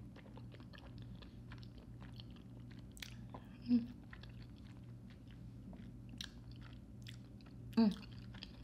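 Close-miked wet chewing and slurping of creamy fettuccine Alfredo noodles, with many small clicking mouth sounds. Two short hums, about four and eight seconds in, are the loudest sounds, over a steady low background hum.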